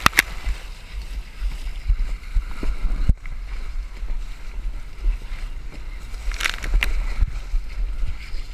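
Water rushing and sloshing over a wet vinyl water slide, heard from a camera riding down it at water level, with a constant low rumble and a few sharp knocks, the loudest just after the start and about three seconds in. A brief bright burst of splashing comes about six and a half seconds in.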